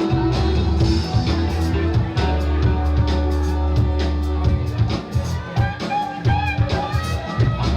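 Rock music with guitar and drums: steady held low notes under guitar lines and frequent drum hits.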